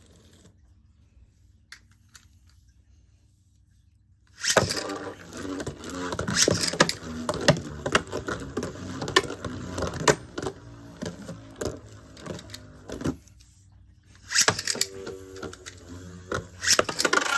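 Metal Fight Beyblade spinning tops launched and battling. There is a sudden start about four seconds in, then rapid clicking and clattering hits as the metal wheels clash over a whirring spin, stopping just before fourteen seconds. A second battle starts about half a second later.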